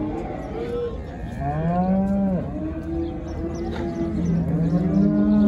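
Cattle mooing: a long moo that rises and falls about a second and a half in, more calls after it, and a longer, louder moo near the end.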